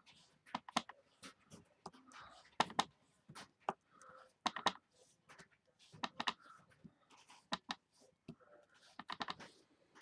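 Clear acrylic stamp block tapped on an ink pad and pressed onto cardstock over and over: small clusters of light clicks and taps every second or two.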